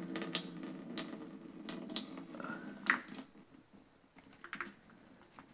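Stale gasoline trickling from a chainsaw's fuel tank into a plastic gas can, with small drips and clicks. The trickle stops about three seconds in, leaving only a few light handling clicks.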